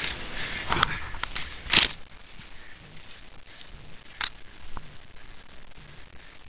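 Handling noise from a hand-held camera: a hand knocking and rubbing on the body near the microphone, several times in the first two seconds and once about four seconds in, over faint footsteps on a dirt trail.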